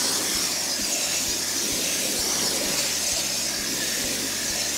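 Steady hiss of water spraying onto a worm bin's bedding, soaking it until it drains out the bottom.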